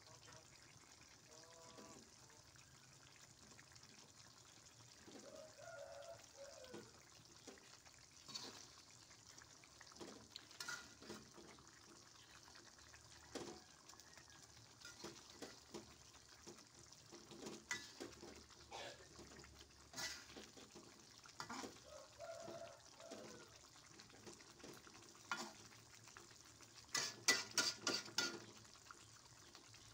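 Slotted spatula stirring and scraping through thick chili sauce in a wok, with a faint simmering sizzle. Scattered light clicks run throughout, and the spatula knocks against the pan several times in quick succession near the end.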